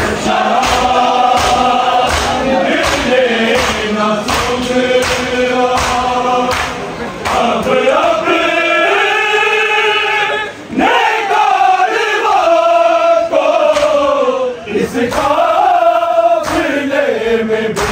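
A group of men chanting a noha, a Shia mourning lament, in chorus, with its melody gliding and held. Rhythmic chest-beating (matam) thuds keep time, at about one and a half a second in the first half and more scattered later.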